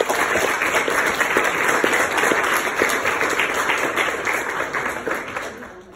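Congregation applauding, a dense patter of many people clapping that dies away near the end.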